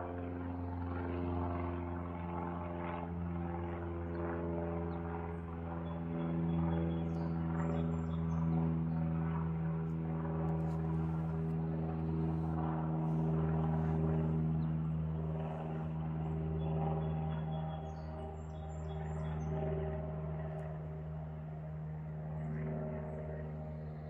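A steady engine drone with a low, even hum, growing louder toward the middle and easing off later. A few faint bird chirps come through twice.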